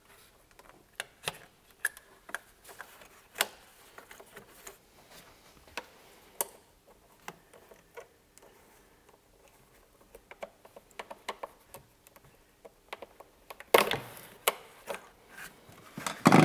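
Irregular sharp plastic clicks and taps as the quick-connect couplings of the fuel lines on a Peugeot 1.6 HDi diesel engine are pried with a flat screwdriver and unclipped by hand. A louder cluster of clatter comes near the end.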